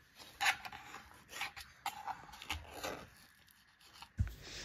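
Kitchen knife scraping against a steel plate as pieces of soft barfi are cut and lifted out: a series of short, faint scrapes, with a dull bump near the end.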